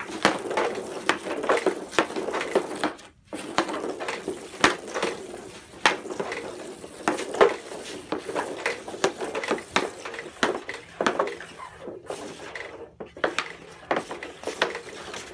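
Ice hockey stick blade and rubber puck clacking and scraping on a concrete patio during stickhandling, irregular sharp knocks about one or two a second.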